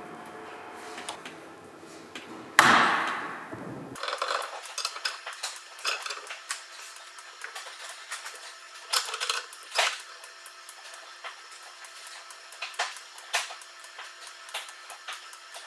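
Metal tools and parts clinking and tapping on a workbench, with one loud ringing metallic strike about two and a half seconds in, then irregular small clicks and clinks.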